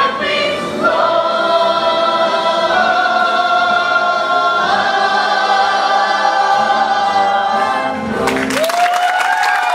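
Stage-musical cast singing together in held chords with accompaniment, ending on a final chord about eight seconds in. The audience then breaks into applause.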